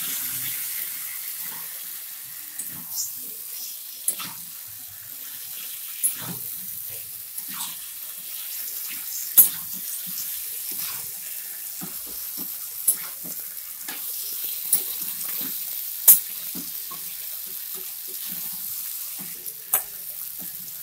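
Jackfruit curry masala sizzling in a metal kadai with a steady hiss, being fried down after a splash of water, while a metal spatula stirs it and clinks and scrapes against the pan many times. The two sharpest clinks come about nine and sixteen seconds in.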